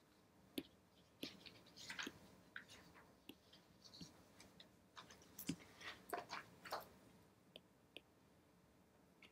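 Faint taps and short scratching strokes of a stylus on a tablet's glass screen, a scatter of clicks that bunch together in the middle seconds.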